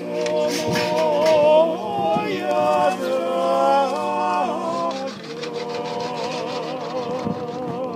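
Dalmatian klapa: unaccompanied men's voices singing in close harmony on long held chords, the upper voices stepping through a few notes. About five seconds in it eases into a softer sustained chord with a wavering vibrato in the top voice.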